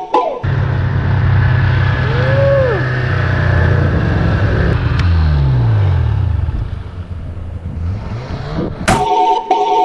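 Snowmobile engine running steadily under throttle, with wind rushing over the action camera's microphone. About six seconds in the engine pitch falls as the throttle comes off, and the engine sound drops away after that.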